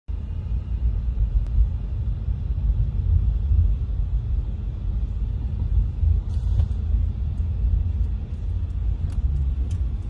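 Low, steady rumble of a car in motion, heard from inside the cabin, with a few faint clicks in the second half.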